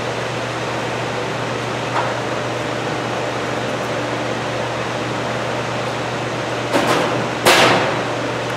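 Steady hum and hiss of a ventilation fan or air conditioning, with a constant low drone. A faint click about two seconds in, and two brief rushing sounds near the end, the second sweeping downward.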